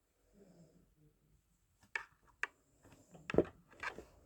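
Small plastic figures being handled and set down: two sharp clicks about two seconds in, then a cluster of knocks and rubbing near the end.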